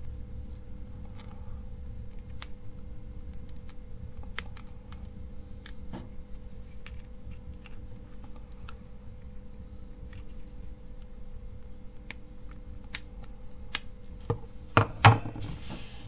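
Flush side cutters snipping the soldered wire leads on a small circuit board: sharp, scattered clicks. Near the end come a few louder knocks and clatter as the board and cutters are handled on the wooden bench.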